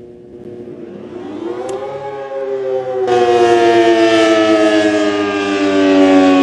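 Outdoor warning siren sounding, its pitch climbing over the first two seconds and then slowly falling as it grows much louder.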